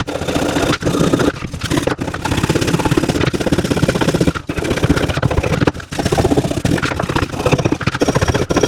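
A motor-driven wire brush scrubbing rust off a rusted steel clamp, a steady harsh whirring scrape that briefly drops out a few times as the work is lifted or shifted.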